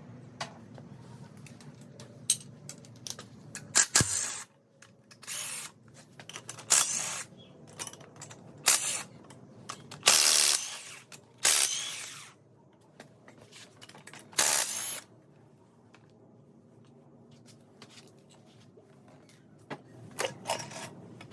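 Power tool run in several short bursts, each about half a second to a second long, spinning out the cylinder head bolts on the LQ4 6.0 V8.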